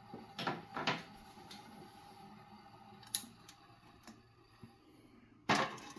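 Quiet room with a few handling noises: two short rustling bursts in the first second, then a sharp click about three seconds in followed by a few faint ticks, over a faint steady hum.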